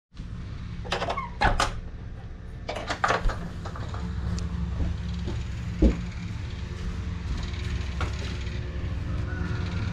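A heavy engine running steadily as a low hum, with a few sharp knocks and clatters over it, the loudest a thump about six seconds in.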